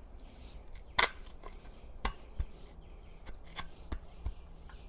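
A few scattered clicks and knocks from engine parts and hand tools being handled during teardown, the sharpest about a second in.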